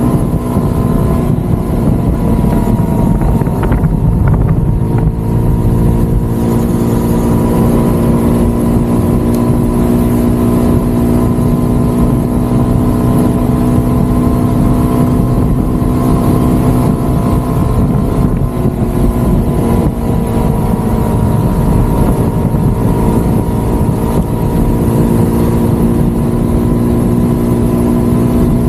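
Motorcycle engine running steadily at cruising speed, a constant pitched drone, with wind and road rush over the microphone.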